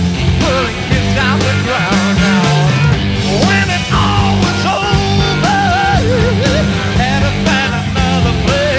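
Loud rock music with a wavering melody line over a steady, dense bass.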